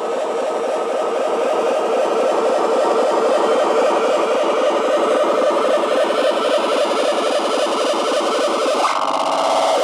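Dense, harsh experimental noise music, a thick pulsing wash that slowly grows louder, then shifts abruptly to a different texture about nine seconds in.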